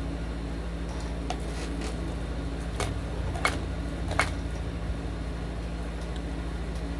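Three sharp clicks of a small plastic toy being handled, a little under a second apart, about three seconds in, over a steady low hum.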